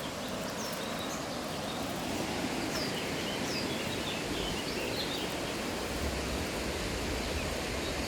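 Steady, even outdoor rush of noise in a forest valley, with a few short high bird chirps in the middle and a low rumble near the end.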